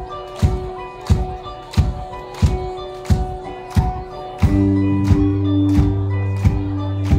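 Live rock band playing: a steady drum hit about every two-thirds of a second over held keyboard and guitar notes. A low, sustained bass chord comes in about four and a half seconds in and the music gets louder.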